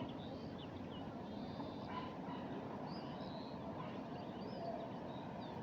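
Small birds chirping, with short, scattered high calls over a steady low rumble.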